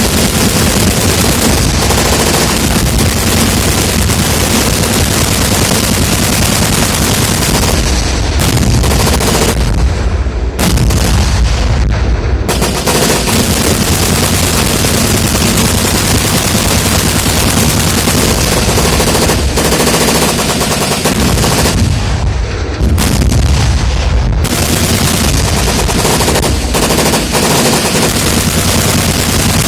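Military weapons firing in rapid, continuous volleys: automatic gunfire mixed with heavier reports, loud throughout, with the sharpest crack dropping out briefly twice.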